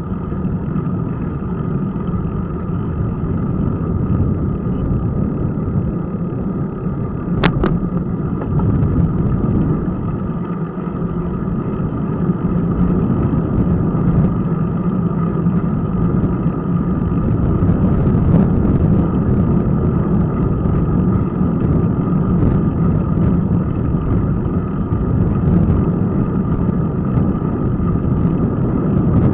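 Steady low rumble of wind buffeting and tyre noise on the microphone of a bike-mounted action camera while cycling on asphalt. One sharp click comes about seven seconds in.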